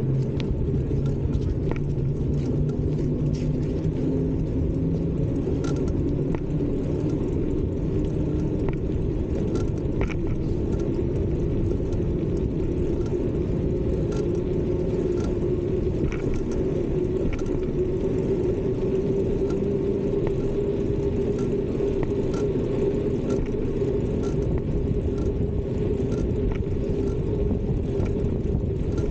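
Bicycle riding along: a steady rolling rumble of the tyres with a low hum that slowly rises in pitch, and faint regular ticks about once a second.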